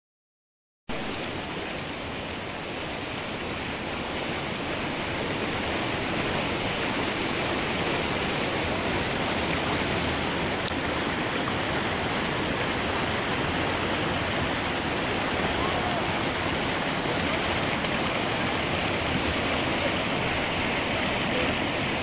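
River whitewater rapids rushing steadily. The sound starts about a second in and grows a little louder over the next few seconds.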